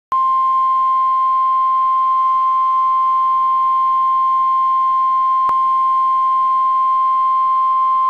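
NOAA Weather Radio 1050 Hz warning alarm tone: one loud, steady, single-pitch tone held unbroken, with a faint click about five and a half seconds in. It is the alert tone that announces a National Weather Service alert message is about to be read.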